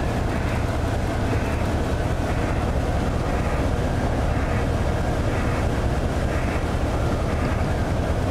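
Fishing trawler's engine running with a steady low drone, heard from inside the wheelhouse.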